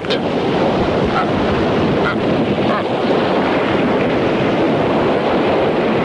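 Steady rushing of surf and wind on a rocky shore, an even noise with no breaks.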